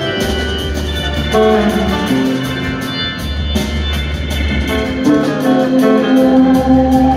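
Live rock band playing: electric guitar melody lines over bass and a steady drum beat with cymbals, with held notes carrying through the second half.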